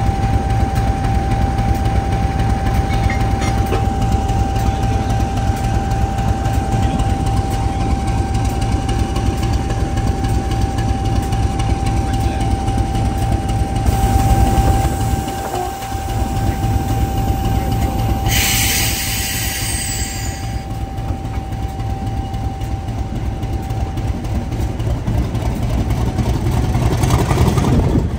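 Class 50 diesel locomotive's English Electric 16-cylinder engine running, a heavy steady throb with a steady high whine over it. A sharp hiss sounds about eighteen seconds in for about two seconds, and the engine grows louder near the end as the locomotive moves off.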